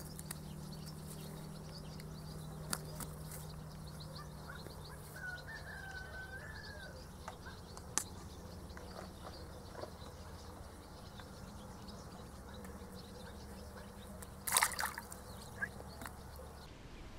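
Quiet riverbank background with a faint chirp about five seconds in, then a short splash near the end as a small caught fish is let go into the shallow water.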